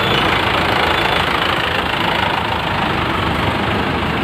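A vehicle engine running steadily at idle.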